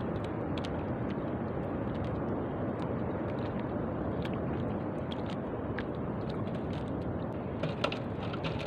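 Steady rushing noise of wind and sea water around a small wooden outrigger boat, with a few light clicks and knocks, the sharpest near the end.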